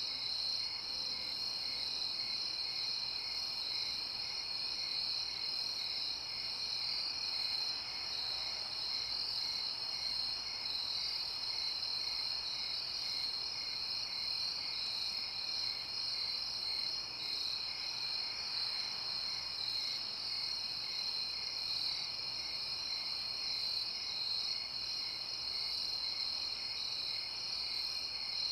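Crickets chirping in a steady chorus: a high continuous trill with a lower chirp pulsing regularly about twice a second.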